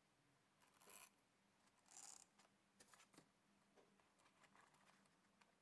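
Near silence: faint rustles of twine and a paper tag being handled as a bow is tied, about one and two seconds in, with a few small ticks and a faint steady hum.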